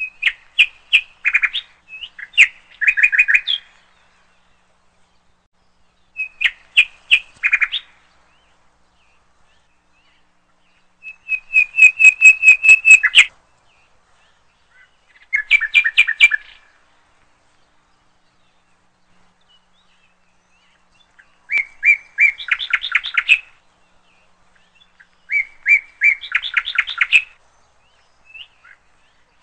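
Swallow song: bursts of fast twittering chirps in about seven short phrases of one to two seconds each, separated by pauses of a few seconds.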